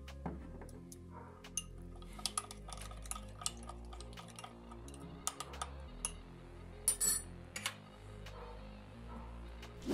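Metal spoon clinking and scraping against a small glass while grated ginger is stirred into lemon juice, in many sharp separate clicks, with a louder cluster of clinks about seven seconds in. Soft background music runs underneath.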